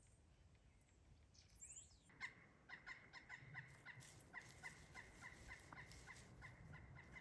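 American toad trilling: one long, steady, high trill that starts about two seconds in and holds at one pitch, faint.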